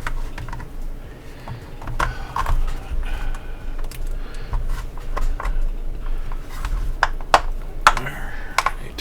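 Hard plastic parts of an action-figure display base being handled and pressed together, giving irregular clicks and knocks, several in quick succession near the end.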